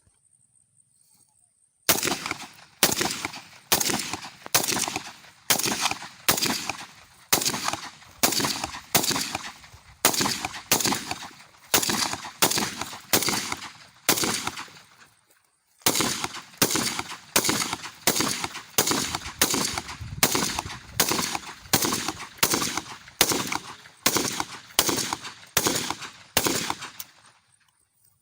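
Gunfire at a firing range: a long string of sharp shots or short bursts, a little under one a second, each trailing off, with a brief pause about halfway before a second string.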